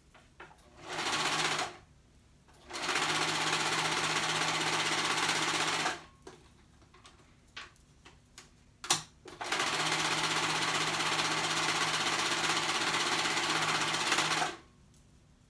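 Four-thread serger stitching a seam in stop-start runs: a short burst about a second and a half in, a run of about three seconds, then a pause with a few small clicks and one sharp click, then a steady run of about five seconds that stops shortly before the end.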